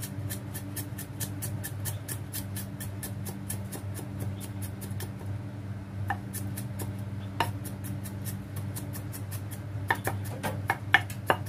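Steel cleaver mincing garlic on a wooden chopping block: quick, light knocks of the blade about four a second, thinning out about halfway through and returning as louder, sharper knocks near the end, over a steady low hum.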